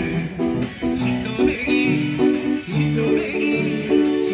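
Upright piano played by ear, both hands sounding melody and chords, together with a singer's voice held on long notes with vibrato.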